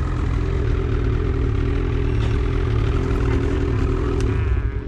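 2020 Ski-Doo Expedition Xtreme snowmobile's two-stroke engine running steadily at low speed, easing off near the end.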